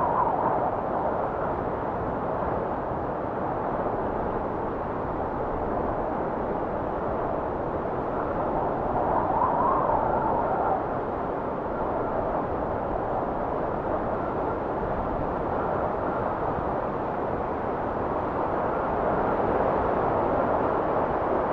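Wind blowing steadily, swelling in gusts near the start, about halfway through and again near the end.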